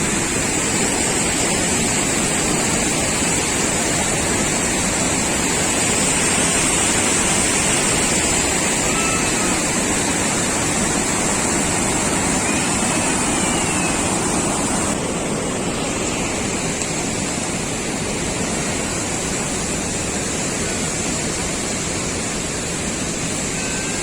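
Steady rushing roar of a waterfall, dropping a little in the upper hiss about fifteen seconds in, with a few faint short chirps over it.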